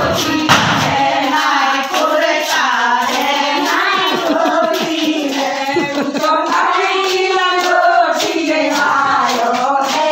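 A group of women singing together with rhythmic handclapping.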